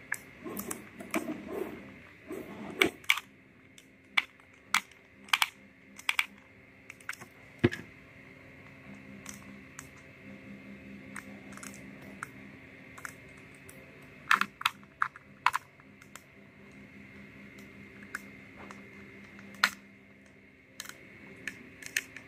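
Scattered sharp clicks and taps of small plastic and metal parts as the grip panel of a Marines SP02 airsoft pistol is fitted and screwed down with a small screwdriver. There is rustly handling in the first few seconds and a quick run of clicks about two-thirds of the way in.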